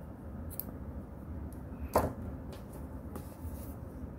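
Low steady room hum with one sharp click about two seconds in and a fainter tick earlier, from hands handling the crochet work on the table.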